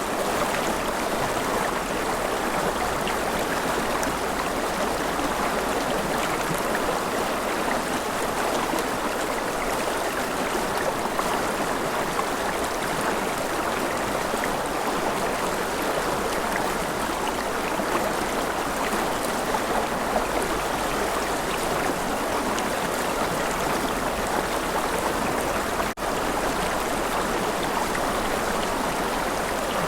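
River water flowing steadily through a forest, a continuous rushing. A split-second dropout breaks it once, late on.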